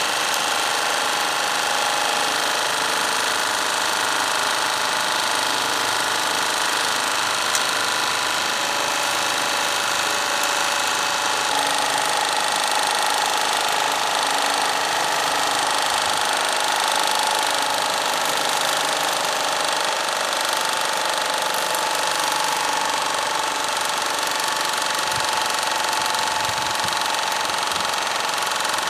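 Philips MP 1002 CA paraffin-fired Stirling engine generating set running steadily during its shutdown. A new steady tone comes in about twelve seconds in.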